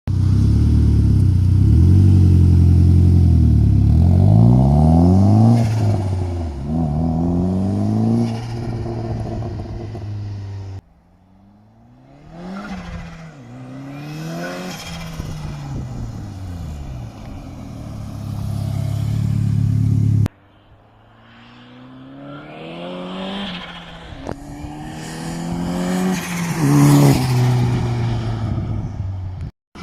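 Vauxhall Corsa B with a turbocharged Saab B204 2.0-litre four-cylinder engine, in three short clips: loud revving and acceleration with the engine pitch rising and falling, then drive-bys that grow louder as the car approaches and fall away in pitch as it passes.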